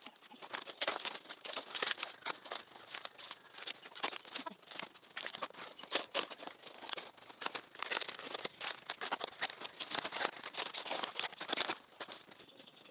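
Crisp crackling, crunching and tearing of plant material, most likely cabbage leaves being snapped and torn off during harvest. The crackling is dense and irregular and stops about 12 seconds in.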